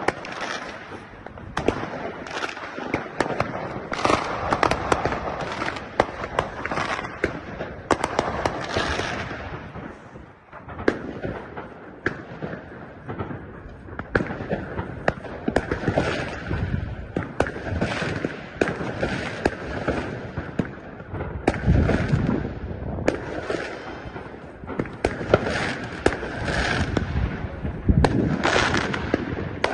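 Fireworks and firecrackers going off: a dense, continuous crackle of sharp bangs, easing briefly about a third of the way in, with deeper booms about two-thirds of the way through and again near the end.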